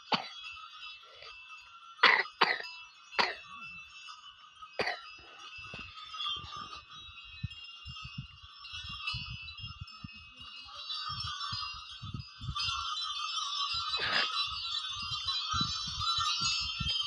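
Bells on a yoked pair of ploughing bullocks jingling steadily as they walk. A few sharp knocks come in the first five seconds and once more near the end, and low irregular thuds follow through the second half.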